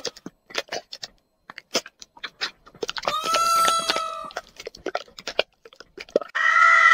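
An animal crunching food with a rapid, uneven series of sharp clicks. A long, steady-pitched call comes about three seconds in, and a harsher, noisier call starts near the end.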